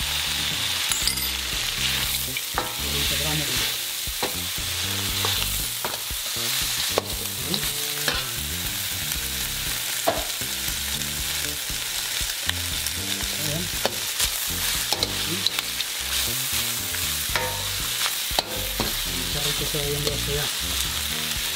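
Chicken and green onion stir-frying in a hot steel wok: steady sizzling, with a metal ladle scraping and clicking against the wok as it stirs.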